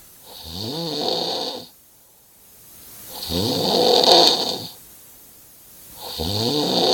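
A sleeping person snoring loudly: three long snores about three seconds apart, each rising and then falling in pitch with a hissing edge, and quiet gaps between them.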